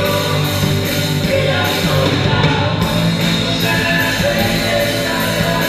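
Live rock band playing: a drum kit keeps a steady beat on the cymbals under electric guitar and bass, with women singing into microphones.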